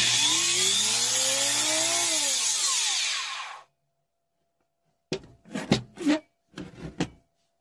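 Ryobi ERT-1150V variable-speed router running on test after its armature repair, its motor whine rising and then falling in pitch before cutting off suddenly about three and a half seconds in. A few short knocks follow near the end.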